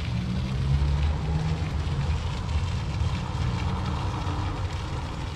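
Low engine rumble of a passing motor vehicle, loudest about a second in and slowly fading away.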